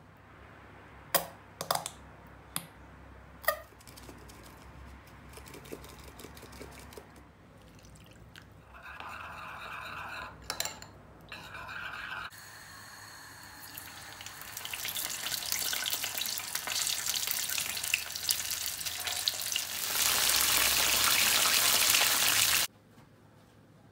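A few sharp clinks, then a spoon stirring a thick sauce in a ceramic bowl. About halfway through, breaded chicken wings start sizzling as they fry in oil in a pan. The sizzle grows louder and cuts off suddenly near the end.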